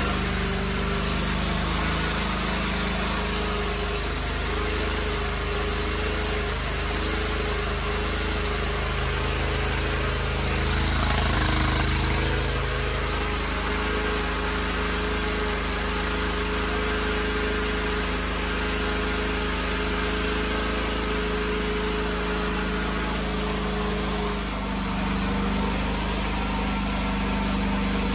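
Kawasaki FS481V V-twin engine on an Exmark Viking 48-inch walk-behind mower running steadily as it warms up just after a cold start, its throttle held fairly high. The note swells slightly about eleven seconds in and shifts a little again near the end.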